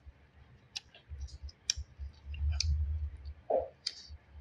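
Eating sounds close to the microphone: scattered mouth clicks and smacks of chewing, with a low rumble about two seconds in.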